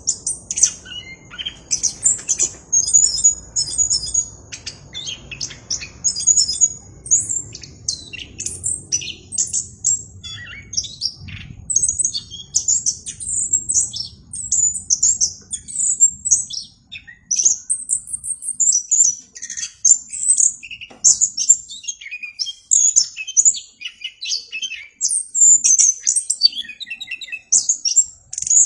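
Orange-headed thrush singing continuously: a long, rapid run of varied, high, sharp notes and trills with hardly a pause.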